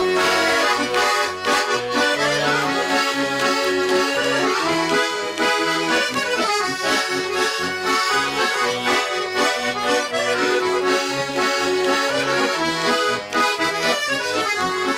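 Bayan (Russian button accordion) playing an instrumental break between sung verses: a melody in the right hand over a steady rhythm of bass notes and chords.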